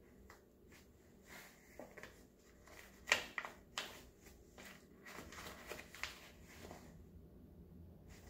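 Laminated reusable shopping bag rustling and crinkling as a cat squirms and paws inside it: irregular soft scrapes and taps, the loudest a little after three seconds.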